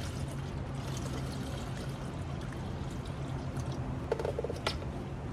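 Engine coolant poured in a steady trickle from a plastic jug through a funnel into a radiator fill neck, topping up the cooling system before a pressure test. A couple of short clicks come about four seconds in.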